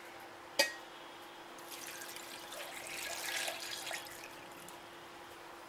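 Milk being poured into a stainless steel mixer-grinder jar, trickling and splashing for a couple of seconds. A single knock comes about half a second in.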